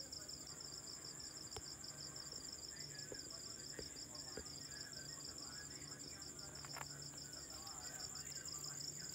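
Night insects, crickets, trilling continuously: a fast pulsing trill with a higher steady one above it. A few faint clicks.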